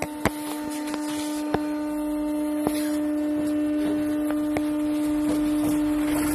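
MF77 Paris Métro train pulling away and gathering speed: a steady, constant-pitch whine from its traction equipment over rising wheel-and-rail noise, with a few sharp clicks.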